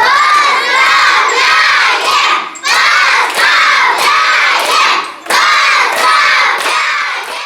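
A group of young children shouting a chant in unison, three times over, each time a loud phrase of a few syllables, with brief pauses between.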